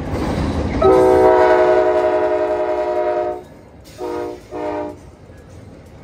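Amtrak Downeaster locomotive sounding its multi-tone horn: one long blast, then two short ones, over a low rumble.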